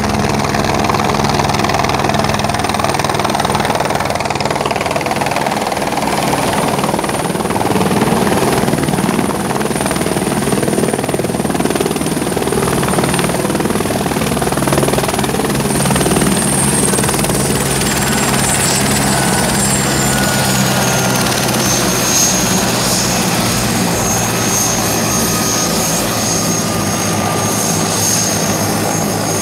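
Light helicopter coming in to land and settling on its skids, rotor and engine running loudly and steadily. From about halfway through, after touchdown, a high whine drops slowly in pitch as the engine eases off.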